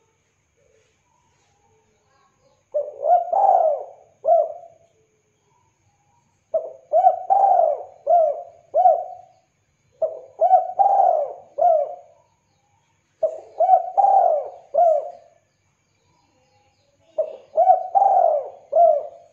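Spotted dove (tekukur) cooing: five phrases of several quick, throaty coos each, about two seconds long, with pauses of a second or two between them.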